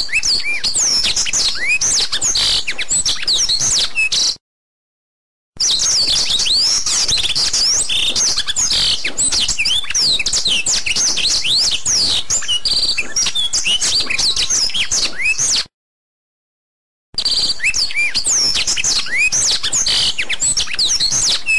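Many small birds chirping and twittering in quick overlapping calls, a birdsong recording that cuts to complete silence twice, about four seconds in and again about sixteen seconds in, then resumes.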